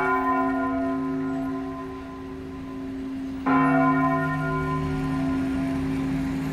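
Cathedral church bell tolling a slow death knell: two strikes about three and a half seconds apart, each ringing on in a long, slowly fading hum.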